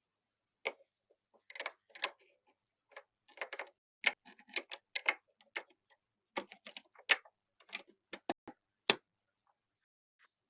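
Irregular short clicks and taps, about two or three a second, with dead silence between them.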